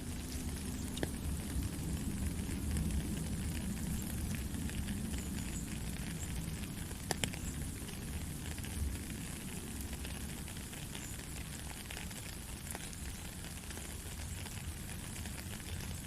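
Steady rain falling, an even hiss over a low rumble, with a few sharper drop ticks now and then.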